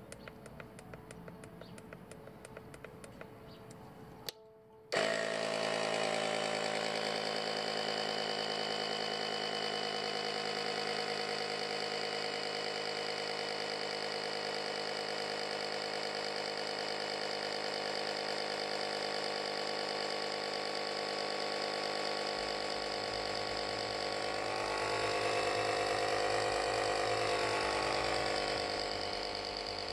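Faint regular ticking, then about five seconds in the UltimateSpeed UPK 10 C1's built-in tyre compressor starts with a click and runs steadily, pumping up a car tyre.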